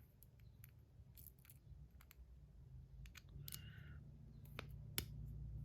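Faint small clicks and light metal handling as tiny screws are worked out of a metal fidget toy, with a brief scrape a little over three seconds in and a sharper click near the end. A low steady hum comes up in the background about three seconds in.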